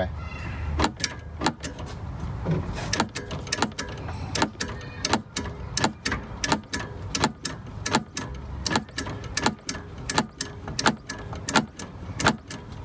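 2019 UAZ Patriot's steering shaft knocking again and again as the wheel is turned, sharp knocks about two or three a second over a low steady hum. The shaft's universal joint is striking a stud at the firewall, because the rubber seal where the shaft passes through has gone soft.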